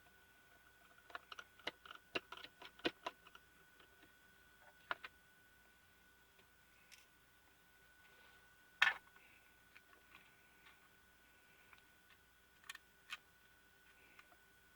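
Small, sharp clicks of a precision screwdriver and plastic parts being handled while screws are taken out of a pico projector's optical engine. A quick run of clicks comes about a second in, then scattered single clicks, the loudest near the middle, over a faint steady hum.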